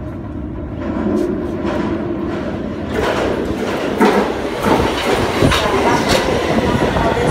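London Underground Victoria line train (2009 Tube Stock) running into the platform: a rumble that builds and grows louder and fuller about three seconds in, with clicking and clattering of the wheels over the rails.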